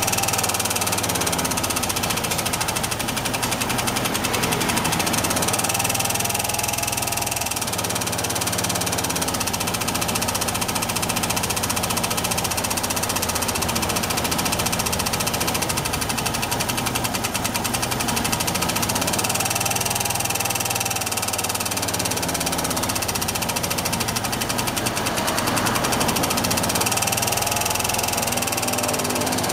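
Suzuki Address V125G scooter's single-cylinder four-stroke engine running with a fast, steady knocking tick, the abnormal engine noise being diagnosed. The revs swell briefly about three times.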